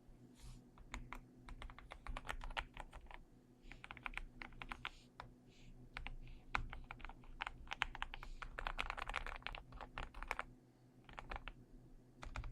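ATK Yogo 75 Pro low-profile mechanical keyboard with linear POM switches being typed on: quick runs of creamy, relatively quiet keystrokes broken by short pauses.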